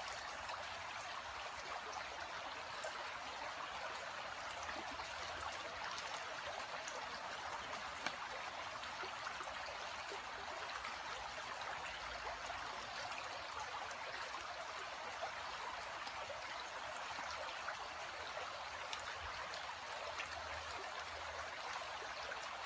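Shallow stream flowing steadily, a constant rushing of water with a few faint clicks.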